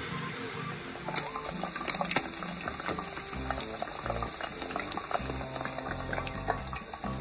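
Pork neck bones frying in hot oil in a pan, with a steady sizzle and many sharp crackles and pops, over background music.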